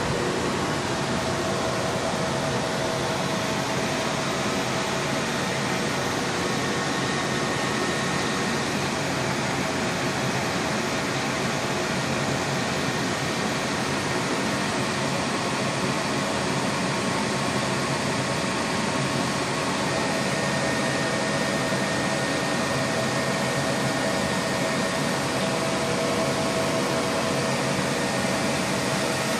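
Cooling fans of rack-mounted network switches and routers running, a steady whir with a few faint whining tones held over the hiss.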